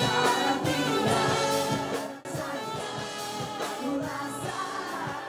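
Female pop singer singing live into a microphone over band accompaniment. About two seconds in the sound breaks off for a moment and the music goes on a little quieter.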